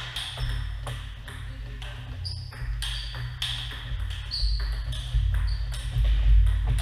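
Table tennis ball clicking back and forth off the bats and table in a rally, with a few short high squeaks in the middle and a low steady hum underneath.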